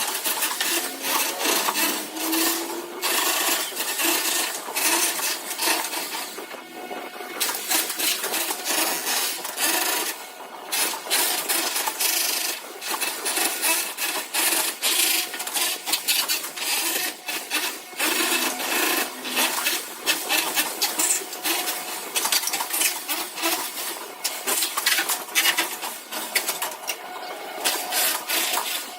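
Continuous scraping and clinking of hand tools on hard building material: a rapid, irregular run of short scrapes and knocks.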